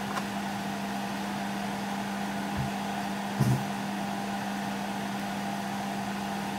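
A steady motor hum with a constant low tone and an even hiss, like a kitchen fan running. Two soft knocks come a little before the middle.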